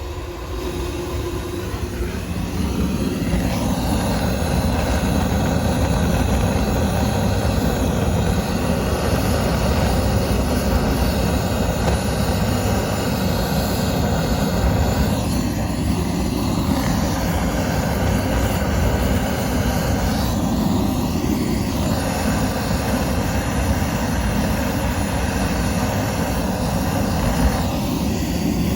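Flame burning nuts with a steady, dense rushing noise that builds over the first few seconds and then holds, its tone shifting briefly now and then.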